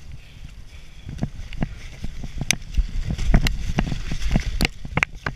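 Mountain bike descending a rough dirt trail: a low rumble of tyres and suspension over the ground, with many sharp rattles and knocks from the bike that come thicker in the second half, and wind on the microphone.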